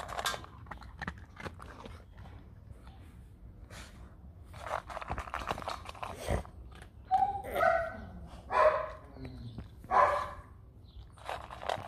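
Dog crunching dry kibble from a steel bowl, then a few loud short barks in the second half.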